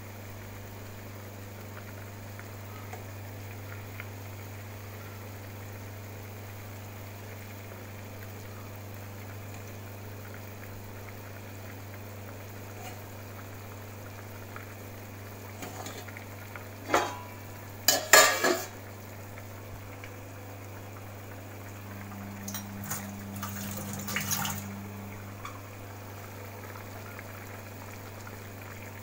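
Chicken korma gravy simmering in a pan, with a steady low hum under it. A little past halfway a metal utensil knocks against the pan a few times, and about three quarters through it clatters again.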